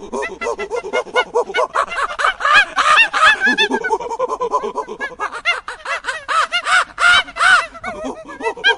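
Monkey-like chattering sound effect: rapid pitched calls, several a second, each rising and falling in pitch.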